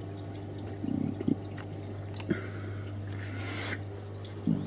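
Steady low hum of a marine aquarium's pump and filtration, with faint trickling water. There are a few soft knocks from the camera being handled, and a hiss of about a second and a half in the middle.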